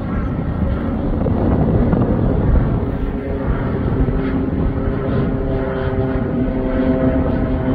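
Cessna 208 Caravan single-engine turboprop flying low overhead: a steady engine and propeller drone, with its humming tones growing clearer about halfway through as it comes closer.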